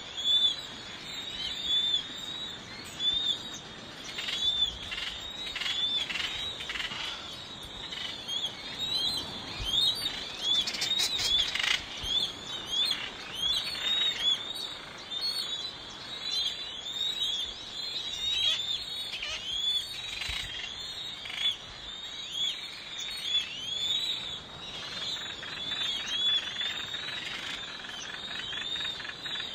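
A breeding colony of lesser noddies calling: a dense chorus of many short, arched calls overlapping without a break, with a few sharper clicks mixed in between about four and twelve seconds in.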